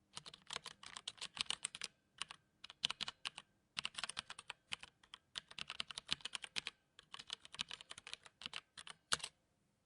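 Typing on a mechanical keyboard: quick runs of sharp key clicks in bursts with short pauses between them, stopping just after nine seconds in.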